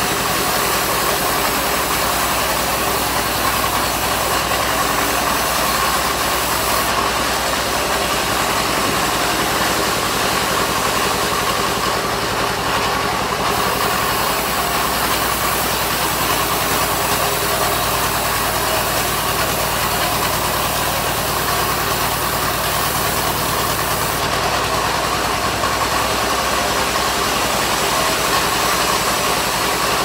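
Truck-mounted band sawmill running steadily: its engine and band saw blade make a loud, even drone as sengon timber is fed through. The tone shifts slightly a few times.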